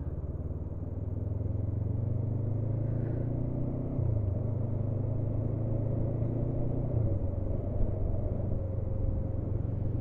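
Honda CB500F's parallel-twin engine running steadily, its note shifting slightly about four seconds in and again near seven seconds.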